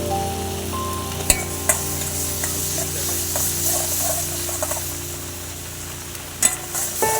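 Food sizzling as it fries in hot oil in a pan, with a few sharp clicks of a utensil against the pan, about a second in and again near the end. Soft background music with held notes plays underneath.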